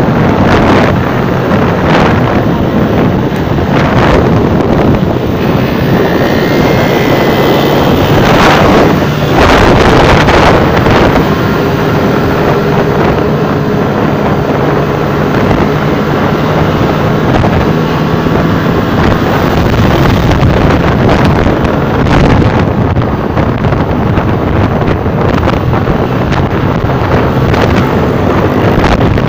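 Wind buffeting the microphone over a motorcycle engine running steadily at road speed, with the rumble of passing traffic.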